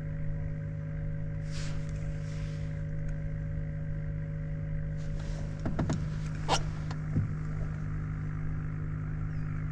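Steady low hum of a small motor, with a few sharp clicks and knocks a little past the middle.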